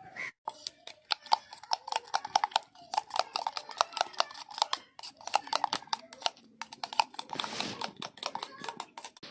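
Steel spoon whisking raw egg with chopped vegetables in a stainless steel tumbler: rapid, continuous clinking of spoon against the metal, with a brief pause about six and a half seconds in.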